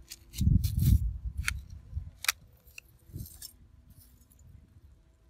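Footsteps landing on loose rubbish and burnt debris, heaviest about half a second to a second in, followed by a few sharp clicks and rattles of litter being disturbed as he crouches.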